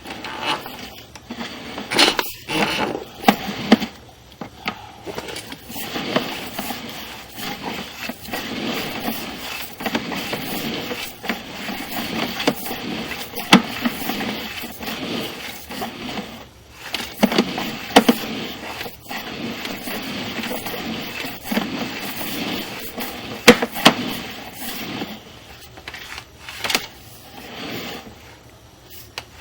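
Sewer inspection camera push cable being fed into a drain pipe, with the camera head and cable scraping, rattling and knocking irregularly against the pipe.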